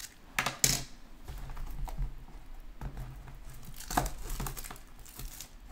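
Plastic shrink wrap being torn and crinkled off a sealed cardboard trading card box. The loudest rip comes about half a second in, with another near four seconds in.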